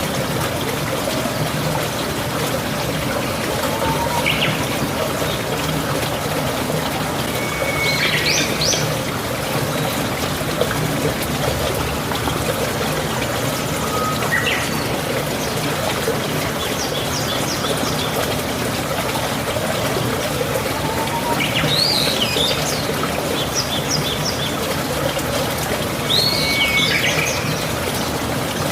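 Birds chirping in short calls every few seconds over a steady rushing noise like running water.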